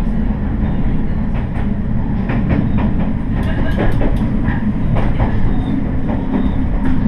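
Diesel railcar running along the line: a steady low rumble from the train, with scattered clicks and knocks from the wheels over the track.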